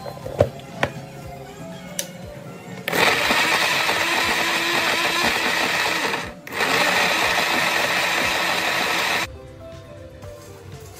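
Electric countertop blender grinding dried red chillies into a paste. It starts about three seconds in, stops for a moment near the middle, runs again and shuts off near the end. A few sharp knocks come before it starts.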